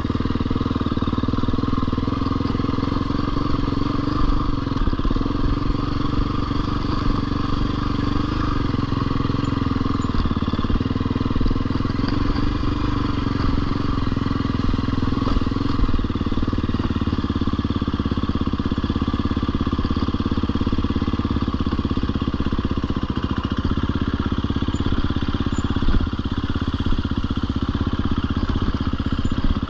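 Husqvarna FE 250 dirt bike's four-stroke single-cylinder engine running continuously under way, its revs rising and falling a little with the throttle.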